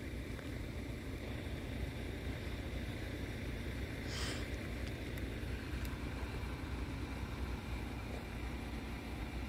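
A steady low rumble of background noise, with a brief soft hiss about four seconds in.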